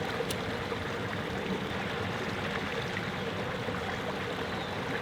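Steady rush of water spilling over a small river waterfall.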